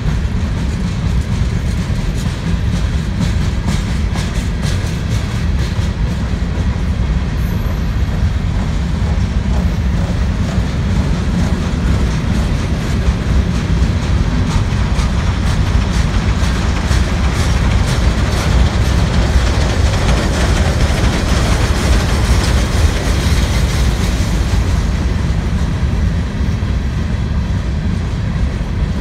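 Freight train of hopper cars rolling past close by: a steady heavy rumble of steel wheels on rail with clickety-clack over the rail joints. About two-thirds of the way through the passing grows louder and hissier.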